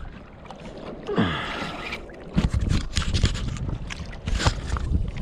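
Water splashing and sloshing around a small fishing boat or kayak, with irregular knocks against the hull. About a second in there is a short sound that drops in pitch.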